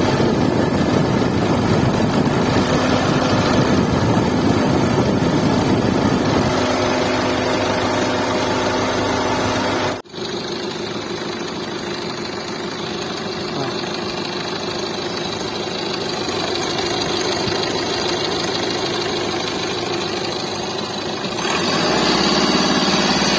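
Mahindra XUV300 diesel engine idling steadily, with a noise that the uploader puts down to a faulty compressor. About ten seconds in the sound cuts out for an instant and resumes a little quieter.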